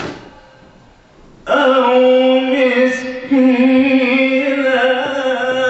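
A man reciting the Quran in melodic tajweed style, sung with wavering, ornamented pitch. A pause of about a second and a half comes first, then one long drawn-out melodic phrase.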